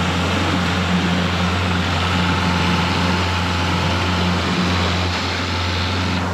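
Yamaha 60 hp outboard motor running steadily under load on a test run after its cooling water passage was cleared.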